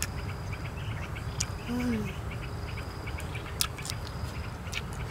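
A woman eating, with a few sharp lip-smacking clicks and one short, falling "mmm" hum about two seconds in. Insects chirp steadily in the background.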